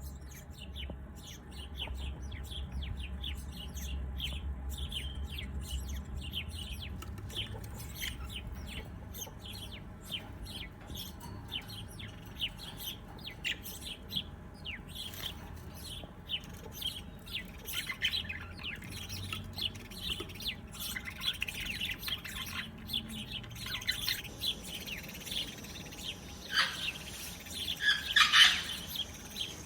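Songbirds chirping and calling in a chorus of many short, quick chirps that grow busier and louder over the last third. A low rumble lies under the first several seconds.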